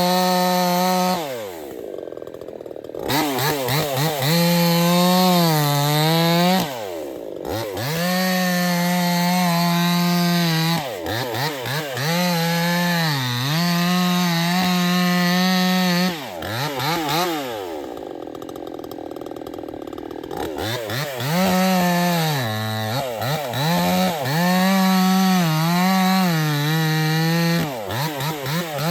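Proyama two-stroke gasoline chainsaw held at full throttle, dropping back to idle several times and revving up again. The engine pitch sags briefly now and then while at speed.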